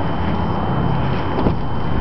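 A Toyota Prius front door latch clicking open about one and a half seconds in, over steady background noise.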